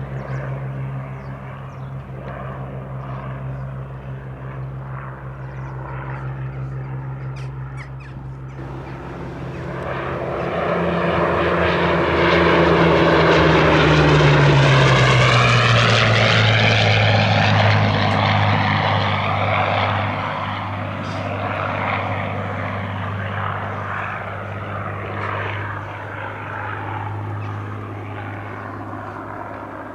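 Hawker Hurricane's Rolls-Royce Merlin V12 engine and propeller passing overhead in a flypast: the drone grows louder to a peak about halfway through, its pitch drops as the aircraft goes by, then it fades away.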